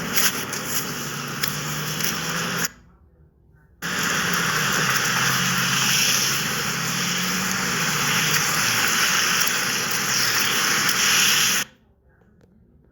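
Steady rushing noise with a faint low hum, cut off twice by short silent gaps, once about three seconds in and again near the end.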